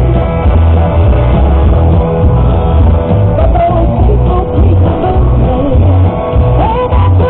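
Loud rock music with a singer and guitar over a heavy, steady bass beat.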